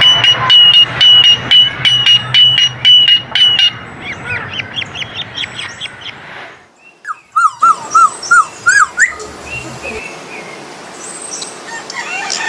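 Coleto (Sarcops calvus) calling: a rapid run of sharp, high repeated notes, then, after a short gap, a series of short hooked whistled notes and higher chatter.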